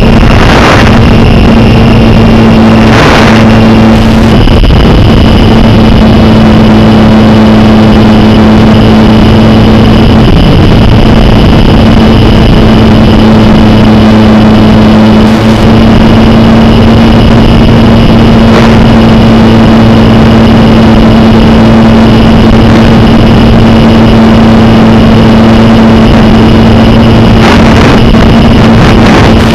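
Loud, steady static hiss with a constant low hum from the audio channel of an analog 5.8 GHz FPV video link, broken by brief crackles where the radio signal glitches.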